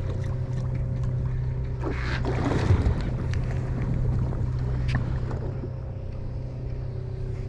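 Charter boat's engine running with a steady low hum, over wind and water noise, with a couple of light knocks.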